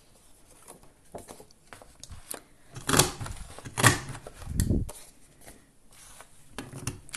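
A paper hole punch clacking through card stock to cut a decorative edge: two sharp clacks about three and four seconds in and a duller thump just after, among faint paper rustling.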